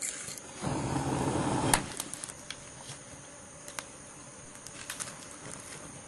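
Wood fire crackling with scattered sharp pops, over a steady high insect drone. A brief louder rustling noise comes about a second in.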